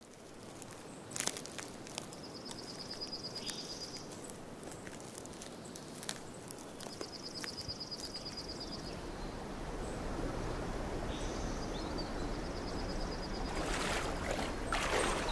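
Woodland ambience: footsteps and sharp twig snaps on the forest floor, a high, fast trill from a bird or insect repeating three times, and the rush of a stream growing louder over the last few seconds.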